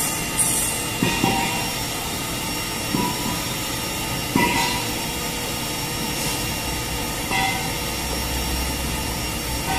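A spray dryer running: a steady machine drone with thin, constant whining tones. A few short knocks and scrapes stand out over it, about a second in, near three seconds, at four and a half seconds and near seven and a half.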